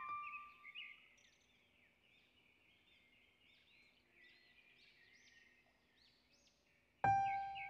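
Birds chirping faintly, many small overlapping calls. A piano note fades out over the first second, and piano music comes back near the end.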